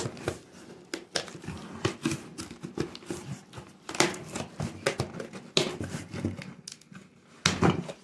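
Packing tape being ripped off a cardboard box and the flaps pulled open: irregular scraping, ripping and crinkling of tape and cardboard, with a few louder rips.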